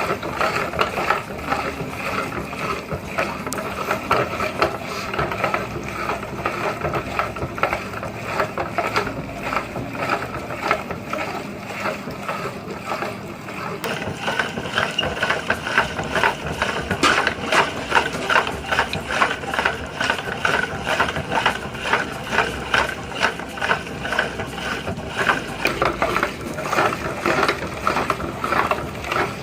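Marbles clattering and rattling inside a running meat grinder, a dense, continuous stream of rapid hard clicks that grows busier from about halfway.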